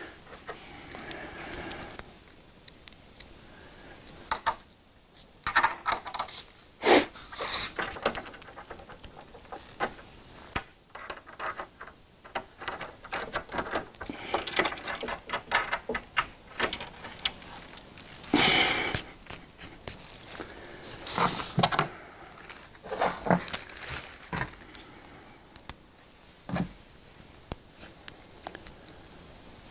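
Small steel hardware (flat washers, lock washers and nuts) clinking and jingling in the hand and on the bench as it is fitted onto a bench vise's mounting bolts, with irregular clicks, scrapes and a few louder knocks.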